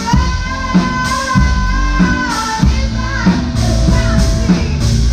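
Live band playing: a female voice holds one long sung note for about the first half, over upright double bass, guitar and a drum kit keeping a steady beat.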